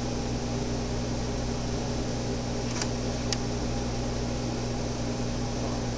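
Steady low hum with an even hiss, and two faint clicks about halfway through.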